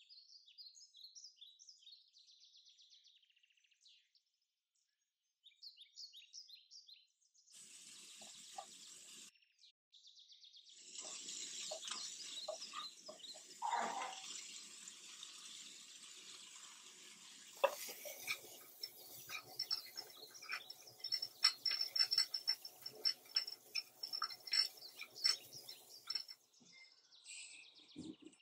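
Broccoli frying in a nonstick frying pan: a steady sizzle, stirred with a plastic slotted spatula that clicks and scrapes against the pan, with many quick clicks in the second half.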